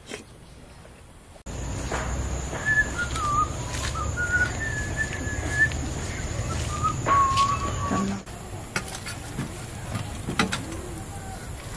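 Short whistled bird-like calls over a steady low rumble, with a thin steady high tone; a few sharp clicks and knocks come in the last few seconds.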